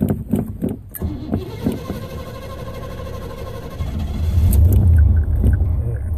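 Car engine being cranked over on the starter during a hard start after refuelling. It catches about four seconds in and settles into a loud, low running rumble.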